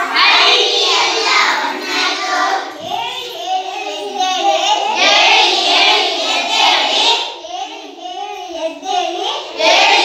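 A group of young children singing together, many voices at once, as part of an action song.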